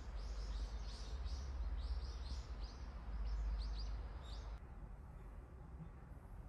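Small birds chirping outdoors: a quick run of short, high chirps that cuts off abruptly about four and a half seconds in, over a low rumble.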